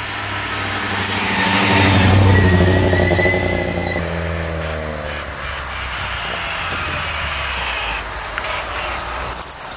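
A car engine passing close by, growing louder to a peak about two seconds in, then dropping in pitch as it moves away.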